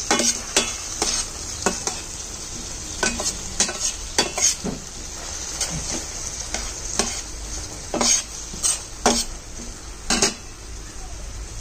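Metal spoon scraping and knocking against a frying pan in irregular strokes as tuna and diced onion are stirred, over a steady sizzle of frying oil.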